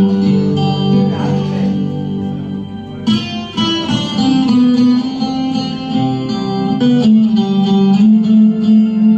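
Instrumental music from a karaoke backing track, with guitar over sustained chords that change about three seconds in and again near seven seconds.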